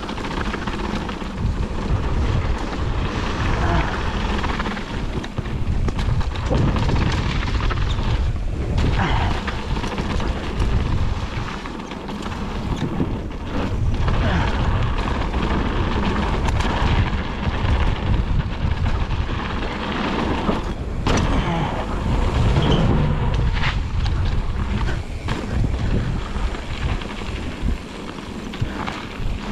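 Wind buffeting an action camera's microphone while a mountain bike rattles down a rough trail, with frequent knocks and thuds as it hits bumps.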